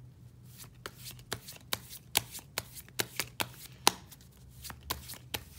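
A deck of tarot cards being shuffled by hand: a quick, irregular run of sharp card clicks and flicks, several a second, starting about half a second in.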